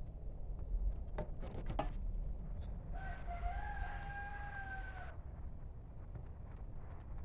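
A rooster crowing once, a single held call of about two seconds near the middle. A few light clicks come before it.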